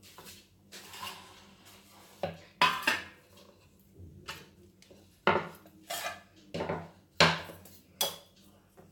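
Stainless steel plate clattering as it is handled and set down: a string of sharp metallic knocks and rattles, the loudest about seven seconds in.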